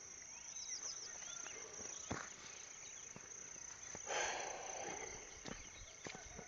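Rural morning ambience: a steady high insect trill, like crickets, with short bird chirps over it. A brief rustle about four seconds in, and a few light clicks.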